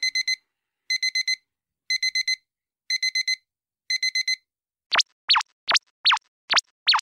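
Digital alarm-clock beeping sound effect: five bursts of four quick high beeps, about one burst a second. About five seconds in it gives way to a string of quick falling electronic whistles, two or three a second.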